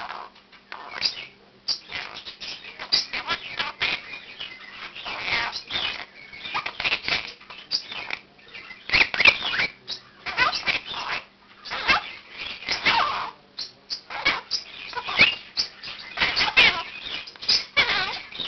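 Quaker parakeet calling in bouts of rapid, high chirps and squawks, with other pet birds in the room joining in: its morning wake-up calling.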